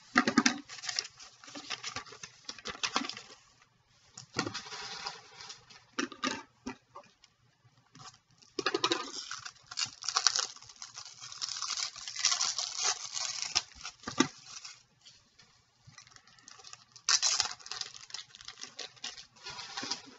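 Hands handling a trading card in a clear plastic sleeve and holder: irregular bursts of plastic rustling and scraping, with a few light clicks.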